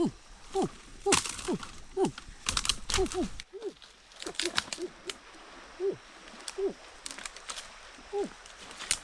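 Chicken clucking: a run of short calls, each falling quickly in pitch, about one or two a second, with a few sharp knocks and rustles in the first few seconds.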